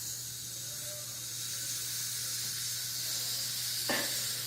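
Carbonated Coca-Cola fizzing: a steady high hiss of bubbles that starts suddenly, with a short click about four seconds in.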